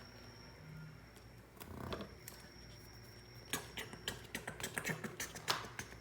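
Small hard plastic toys clicking and clattering as toy horses are handled and set into a plastic toy trailer. A quick, irregular run of small clicks starts about three and a half seconds in.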